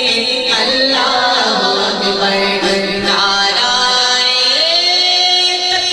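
A man's voice singing a religious verse without instruments, drawing out long melodic notes. Near the end he holds one long note that rises in pitch.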